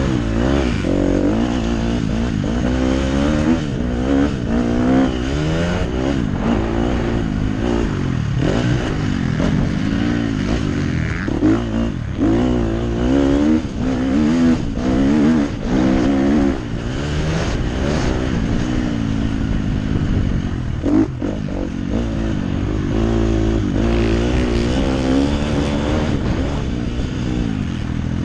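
KTM 250 SX-F motocross bike's single-cylinder four-stroke engine revving hard and backing off over and over as it is raced around a dirt track, the pitch climbing and dropping with each burst of throttle. A few sharp knocks from the bike over the bumps.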